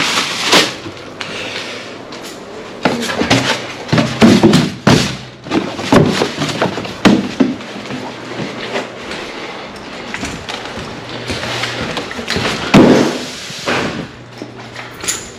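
Irregular knocks, clunks and clatter of hard objects being handled and set down. They are busiest from about three to eight seconds in, with a louder knock near the end.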